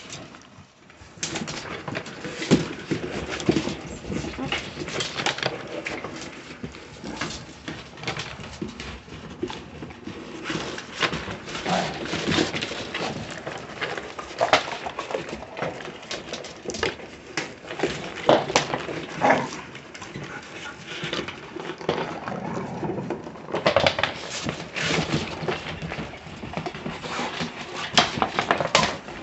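Several puppies squabbling excitedly over bully sticks, with short sharp yaps and squeaks and scuffling noises coming thick and fast.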